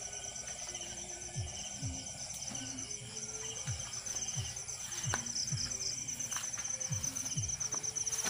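A night chorus of crickets trilling steadily, high and pulsing. Under it, short low calls glide downward in pitch and repeat about once a second.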